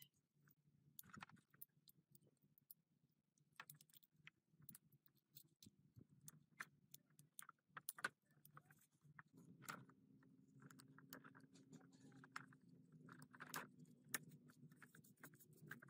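Faint metal clicks and clinks of a piston ring being fitted onto an engine piston in gloved hands. A faint steady hum joins about nine seconds in.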